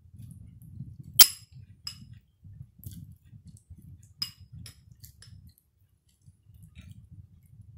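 White ceramic soup spoon clinking against a ceramic rice bowl several times while scooping rice, the loudest clink about a second in, over soft low chewing sounds.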